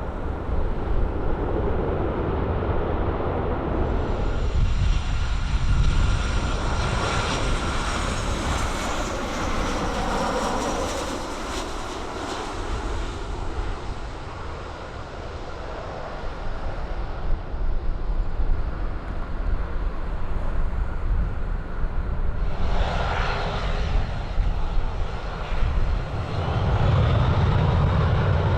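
Turbine aircraft engines running close by, with a high whine over a heavy rumble. The whine swells and sweeps as the aircraft passes, about ten seconds in, and there is a second short burst of noise near the end.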